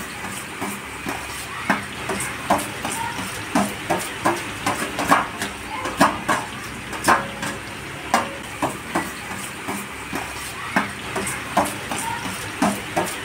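A steel spoon scraping and tapping against a steel plate as chopped onions are pushed into hot oil in a large metal pot, over a steady sizzle of the frying oil. Near the end the spoon stirs the onions in the pot.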